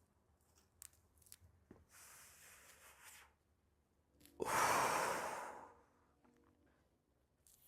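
A person smoking a blunt: a soft drawn-in breath, then about a second later a louder, longer breath out as the smoke is exhaled. A few faint clicks come before the inhale.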